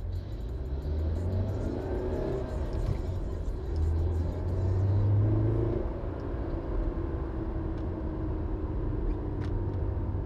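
Car engine and road rumble heard from inside a moving car, the engine note rising and falling, loudest about four to six seconds in.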